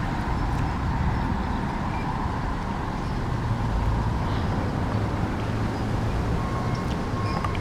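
Steady low outdoor rumble with a faint hum under it and no clear single event.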